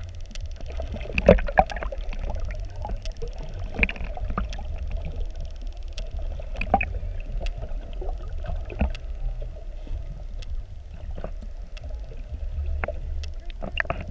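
Muffled underwater sound picked up by a camera held below the sea surface: a steady low rumble and hum, with many short sharp clicks and pops scattered throughout.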